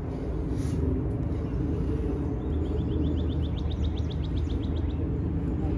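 Steady low outdoor background rumble, with a bird's fast trill of short repeated chirps lasting about two seconds in the middle.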